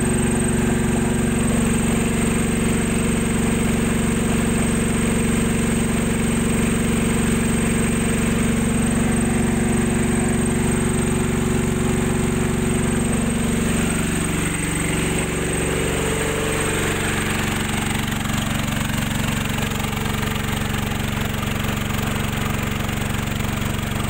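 SH15000EX 9 kVA generator's engine running steadily. About fourteen seconds in, its note dips and wavers briefly, then settles a little quieter.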